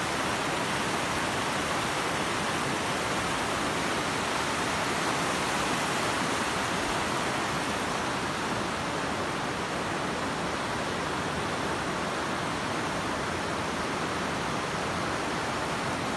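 Mountain stream and thin waterfall rushing over rocks: a steady, even rush of falling water.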